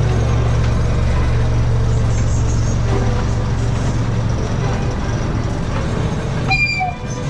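Miniature park train running on its track: a steady low rumble that fades about four seconds in. Near the end, music starts.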